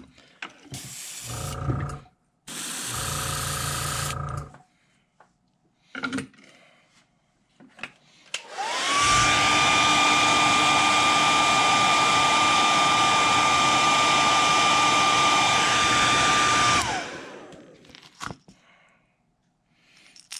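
Handheld hair dryer switched on, its motor whine rising to a steady pitch over a loud rush of air, running for about eight seconds and then winding down as it is switched off. Two shorter bursts of hiss with a low hum come in the first few seconds.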